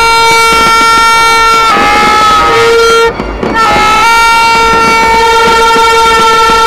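Horns blowing long, steady, very loud notes, several tones layered, with short breaks about two and three seconds in.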